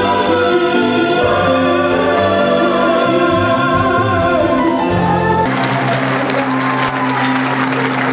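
Choir singing a polyphonic arrangement of a traditional Moroccan song, several voices holding chords. About five and a half seconds in the singing ends and the audience breaks into applause.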